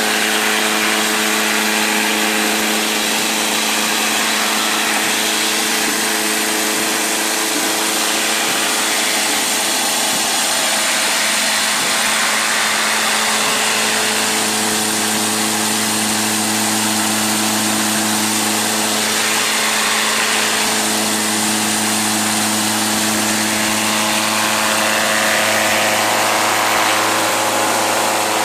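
Electric concrete scarifier running as it is pushed across the floor, its cutter drum scraping off an epoxy coating. It makes a steady motor hum under a loud, even scraping noise.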